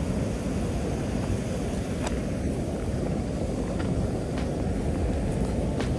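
Steady low rushing noise of wind buffeting the microphone and moving river water, with a few faint clicks about two, four and six seconds in.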